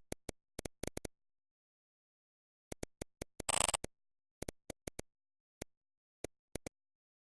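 Irregular sharp clicks, about sixteen of them, with dead silence between, and a half-second rustling burst about three and a half seconds in.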